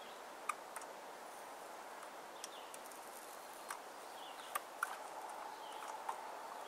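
Steady faint hiss of a grilled cheese sandwich sizzling in a thin pan on a canister gas stove, with about seven light clicks and taps as the pan is handled.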